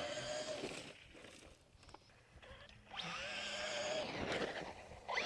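Electric motor of a Traxxas Rustler RC truck whining as it drives over dirt and sand. It sounds in two bursts of throttle: one trailing off about a second in, and another from about three seconds that cuts off sharply a second and a half later.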